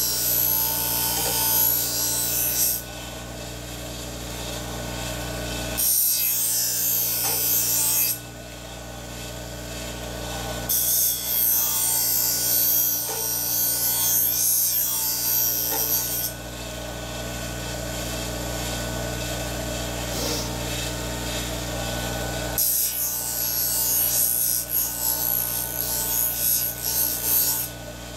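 Twice As Sharp scissor sharpening machine running with a steady motor hum. The blade of a pair of Kenchii Pink Poodle grooming shears is ground against its polishing wheel by hand in four long passes, each a loud rasping hiss lasting a few seconds. This is hand-sharpening, putting the semi-convex edge back on the shears.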